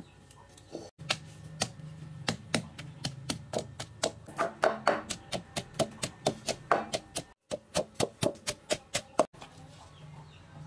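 Pestle pounding garlic cloves into a moist yellow lemongrass paste in a heavy mortar: repeated dull knocks about three a second, stopping about nine seconds in.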